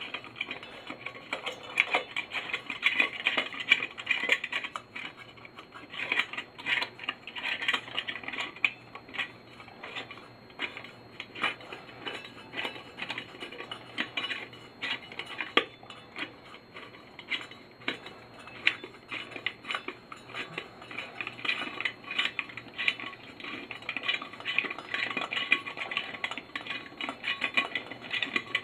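Thin brass lamp base and fittings clinking and scraping in the hands as they are twisted to work a nut loose, a near-continuous run of small metallic clicks and rattles.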